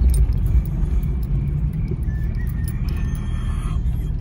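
An off-road SUV driving up a sandy trail, its engine running under load with a steady low rumble and scattered small clicks.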